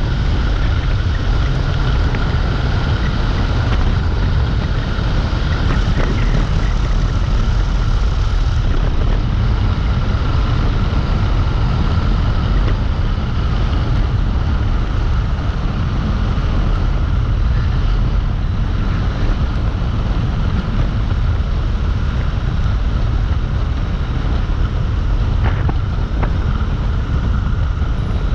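Wind buffeting the microphone on a moving Dualtron Compact electric scooter, a steady low rumble with a faint high whine held throughout.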